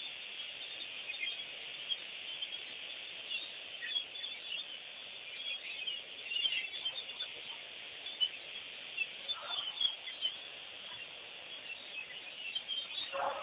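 Many birds chirping and calling together in a dense, steady chorus. Two brief lower calls stand out, one a little past halfway and one near the end.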